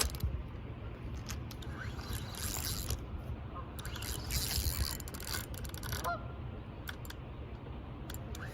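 Footsteps and rustling in brush over a low rumble of wind on the microphone, as someone hurries along on foot. A short rising call cuts through about six seconds in.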